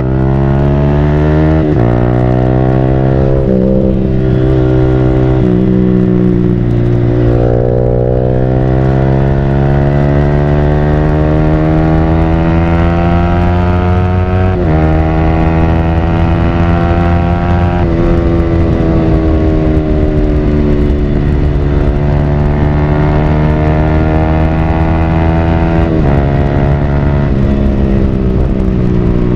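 Yamaha R15 V3's 155 cc single-cylinder engine through a Villan Pro1 full-system aftermarket exhaust under riding load. The revs climb steadily and drop sharply at each gear change, four times.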